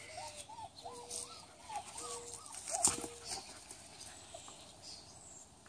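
German shepherd puppies whimpering and squealing in a quick series of short, high rising-and-falling whines over the first three seconds or so, with a sharp knock about three seconds in.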